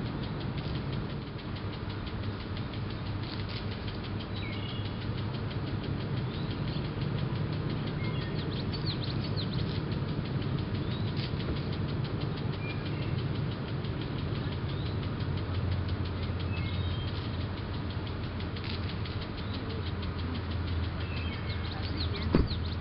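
Boat engine running steadily, its note settling lower about two-thirds of the way through, with faint high chirps over it and a single sharp knock near the end.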